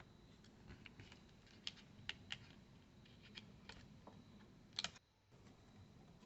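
Faint, irregular light clicks and taps of a screwdriver and small parts being handled inside an opened laptop. The loudest is a quick double click about five seconds in.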